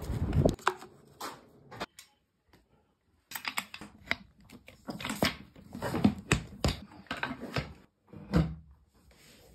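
Plastic caster wheel of an IKEA swivel chair being turned and fiddled with by hand, giving an irregular run of sharp clicks and knocks for several seconds. A short rustle of a plastic bag opens the stretch.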